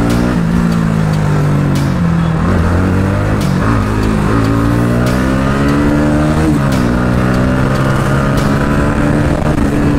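Motorcycle engine under way, heard from the rider's seat. Its pitch falls off, climbs under throttle, drops sharply at about three and a half and six and a half seconds in, then rises slowly again.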